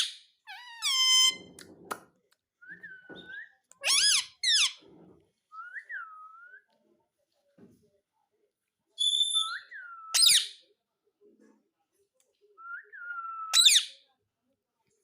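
Pet parrot calling on and off: short gliding whistles broken by shrill rising and falling screeches, with some soft chattering between them.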